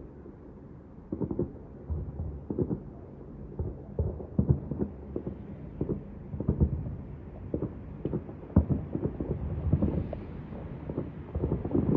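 Distant fireworks going off: a string of dull, thunder-like booms about every second, growing busier toward the end.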